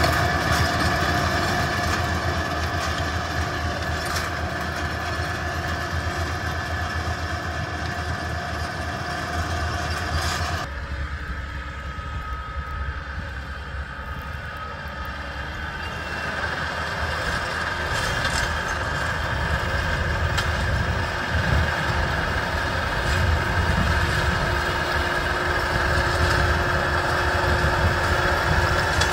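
Yanmar YT490A farm tractor's diesel engine running steadily while it works a field with a rotary tiller. About 11 s in the sound abruptly turns quieter and duller, as if heard from farther away, and it builds back up from about 16 s.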